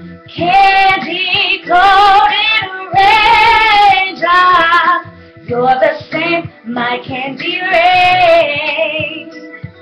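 A female voice singing wordless runs and held notes with vibrato over an R&B instrumental backing track.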